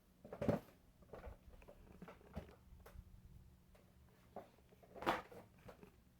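Scattered rustles and soft knocks, loudest about half a second in and again about five seconds in, over the faint steady hum of a Casablanca ceiling fan's Emerson K55 motor running at speed 3.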